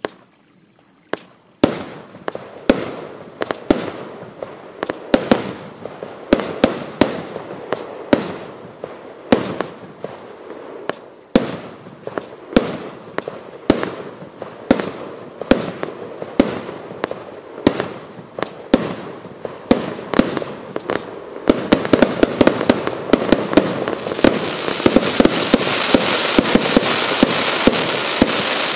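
Pyro Crazy consumer firework cake firing: single shots launch and burst about once a second, with crackle between them. About three quarters in the shots quicken into a rapid volley over a loud rushing hiss from fountain jets in the finale.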